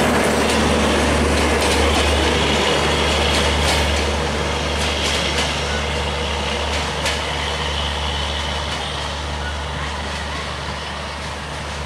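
Passenger train coaches rolling past, wheels clicking over rail joints, with a steady low diesel hum underneath. The sound fades slowly as the tail of the train goes by.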